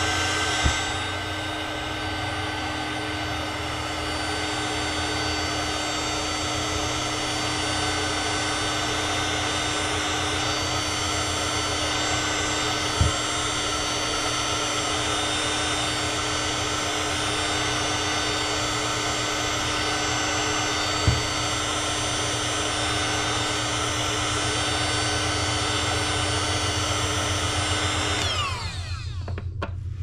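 Heat gun blowing steadily with a fan whine as it shrinks the tubing of a solder-seal wire joint. Near the end it is switched off and its fan winds down with a falling whine.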